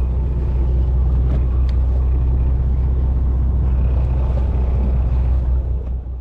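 Fishing boat's engine running with a steady deep rumble, stopping suddenly near the end.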